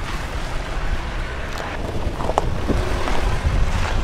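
Jeep Compass SUV driving over a loose dirt and gravel track: a steady low rumble of engine and tyres, with wind noise on the microphone and a few crunches of stones about two seconds in.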